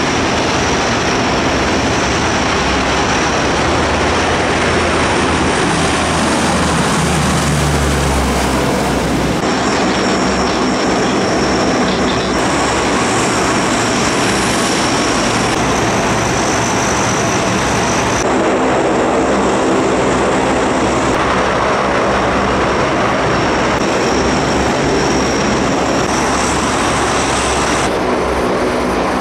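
Lockheed C-130 Hercules transports' four turboprop engines running at high power on take-off: a loud, steady drone, with the sound changing abruptly several times between clips.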